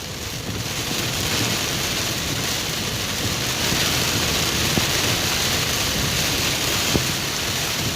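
Heavy rain falling on a car's roof and windshield, heard from inside the cabin: a steady hiss that grows a little louder in the first second, with two brief sharp ticks, one near the middle and one near the end.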